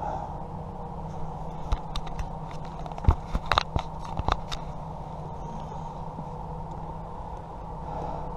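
A quick run of sharp clicks and taps in the middle, like small plastic buttons and parts being handled, over a steady electrical hum.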